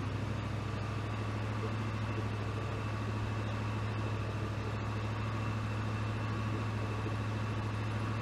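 1965 Ford Thunderbird's 390 V8 running steadily at a raised fast idle, its throttle held open by the cruise control's vacuum servo with its newly replaced bellows. The servo is working.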